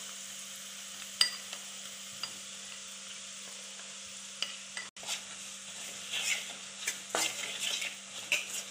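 Chili powder, garlic and ginger sizzling in hot sesame oil in a metal pan, with a light clink about a second in. From about five seconds in, a spoon stirs and scrapes through the mixture against the pan in repeated strokes over the steady sizzle.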